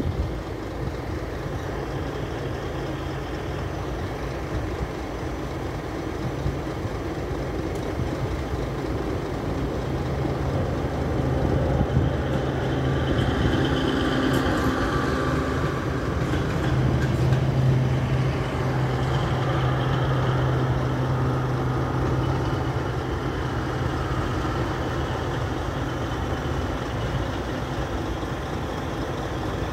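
Diesel locomotive hauling a passenger coach pulls away from a station, its engine drone building to its loudest about halfway through as it passes, then fading as it draws away.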